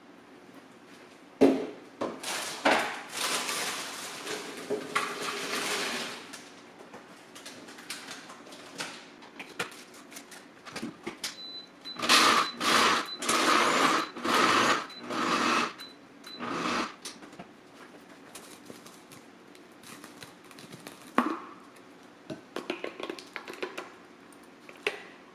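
Plastic personal-blender cup and blade base being handled: knocks, clatter and rustling of crushed Flamin' Hot Cheetos. The sounds come in two main stretches of a few seconds each, with a few shorter knocks later.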